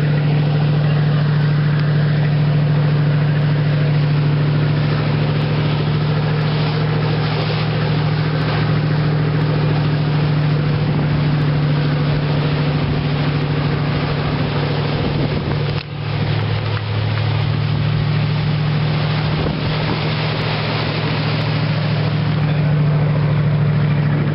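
Motorboat engine running steadily at speed, with water rush and wind noise on the microphone; the sound dips briefly about two-thirds of the way through.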